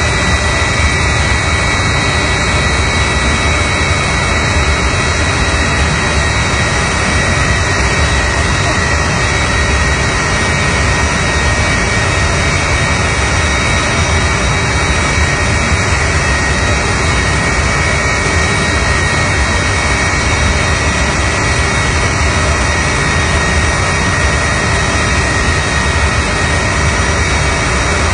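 Jet truck's jet engine running steadily: a loud, even rush with a high, steady whine.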